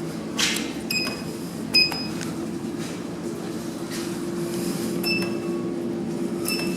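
Four short electronic beeps from a service lift, about 1, 2, 5 and 6.5 seconds in, over a steady low hum, with a brief rustle near the start.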